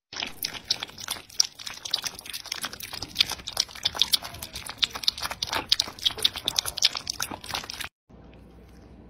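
A cat lapping liquid from a bowl: a quick, irregular run of small clicks from its tongue. It cuts off suddenly near the end, leaving only a faint steady hiss.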